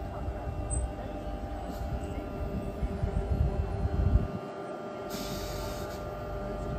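Sydney Trains Tangara double-deck electric train rolling to a stop at a platform: a low rumble over a steady hum that fades out about four seconds in, then a short hiss of air about five seconds in, with the hum carrying on.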